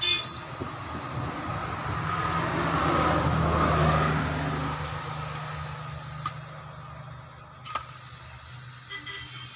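Compressed air rushing through a shop air line at a lever valve, a hiss that swells for a few seconds and then dies away, over a steady low hum. A sharp click near the start and another near the end.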